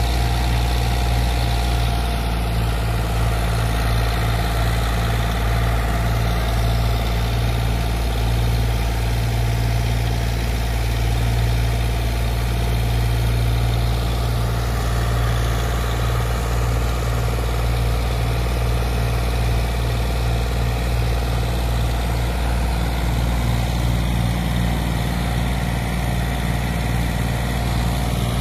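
Tractor engine running steadily at a constant speed, driving a brick-making machine.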